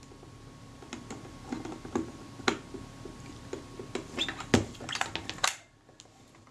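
Small metal clicks, taps and scrapes of a tubular metal tool working against the corroded retaining ring on the back of an old Kodak Retina's shutter, trying to turn it. The sharpest click comes about four and a half seconds in.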